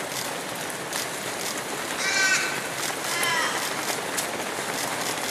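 A crow calling twice, about two and three seconds in, harsh caws with the second falling in pitch, over the steady patter of many runners' footsteps on the road.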